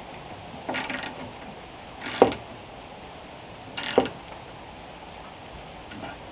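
Hand wrench tightening a bolt on a Norwood sawmill: three short metallic ratcheting strokes about a second and a half apart, the second and third with a brief ring, and a faint fourth near the end.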